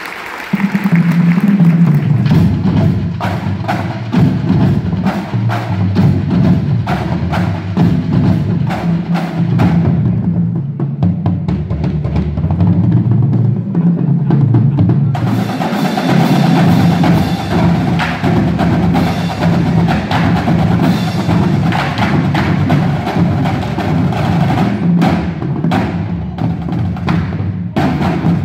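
Marching drumline of snare drums, tenor drums and bass drums playing a percussion piece, with crisp stick strokes over the deeper bass drum hits. The drumming starts about half a second in; around ten seconds in the higher snare strokes drop away, leaving mostly the low drums for several seconds, before the full line comes back in at about fifteen seconds.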